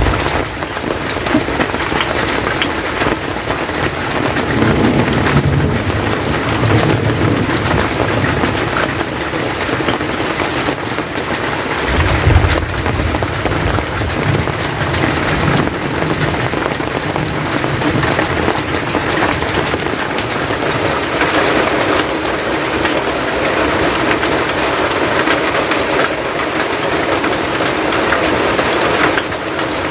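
Steady rain falling on the hut's roof and the wet ground around it, a dense even patter, with a low rumble about twelve seconds in.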